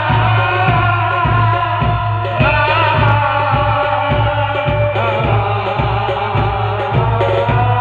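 Qawwali music, loud: a voice singing with sliding melodic lines over a steady drum beat and a heavy bass.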